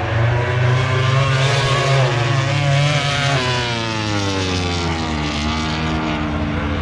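Racing motorcycle engines passing at speed. The pitch climbs, then drops away in a long falling glide about three seconds in, over a steady low drone.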